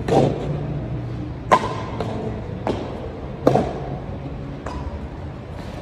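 Badminton rally: rackets striking a shuttlecock in a string of sharp hits, about six in all, roughly a second apart.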